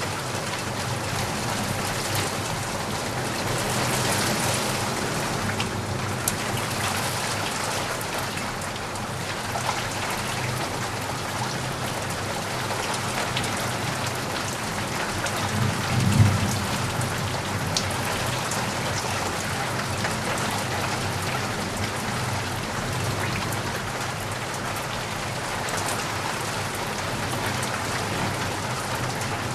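Steady rain falling, with scattered drop ticks. A brief low rumble swells and fades about halfway through.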